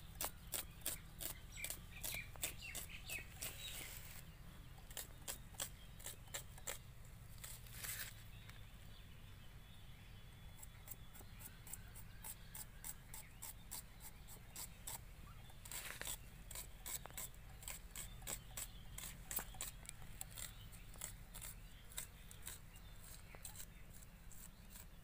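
Onion being sliced on a boti, the upright curved blade used in Bengali kitchens: a string of faint crisp cutting clicks, several a second, in runs with short pauses.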